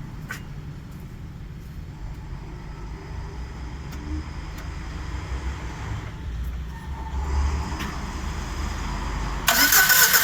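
A VAZ-2113's four-cylinder fuel-injected engine being started: a low, pulsing turning-over that builds for several seconds, then the engine catches with a sudden loud jump near the end. It starts poorly, as if one cylinder has a problem; that cylinder was later found burnt, with almost no compression.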